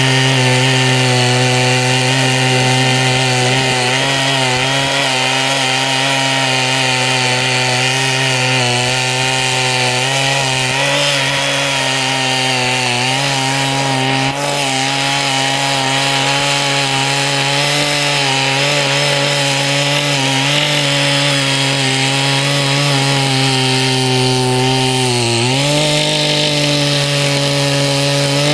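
Small petrol engine of a CY50 mini rotary tiller running steadily under load as its tines break up hard, uncultivated field soil. About three seconds before the end the engine note dips briefly, then settles a little higher.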